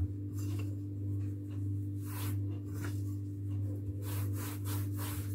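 A hand rubbing and patting two rolled logs of sugared puff-pastry dough to press them together, giving soft brushing sounds, a few around two seconds in and more from about four seconds in, over a steady low hum.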